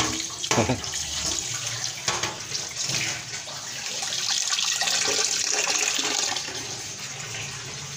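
Water running: a kitchen tap splashing into a stainless steel sink and draining through the opened PVC P-trap into a metal pot below, louder for a couple of seconds past the middle.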